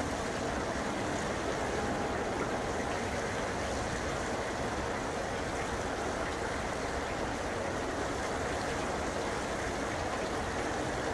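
A Boeing 747 freighter's four jet engines at low taxi power, heard as a steady, even rushing roar.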